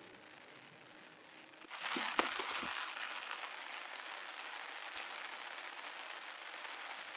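Steady rain hiss on a nylon tarp overhead, coming in suddenly about two seconds in, with a few brief knocks and rustles just as it starts.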